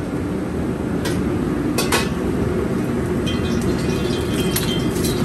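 A metal ladle clinking sharply against a steel wok a few times, over the steady low roar of a commercial wok range.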